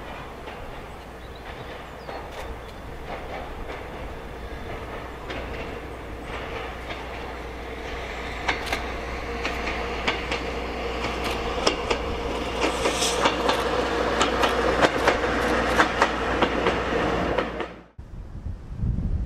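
NER 1903 Autocar, a single petrol-electric railcar, approaching along the track with a steady hum and wheel clicks over the rail joints that grow louder and come faster as it nears. The sound cuts off abruptly near the end and gives way to wind on the microphone.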